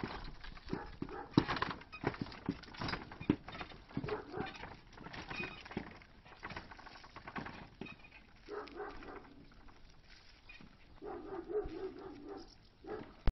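Horse's hooves clopping on a paved road, with the wooden cart rattling and knocking as it rolls. In the second half a pitched call sounds twice, the second one longer.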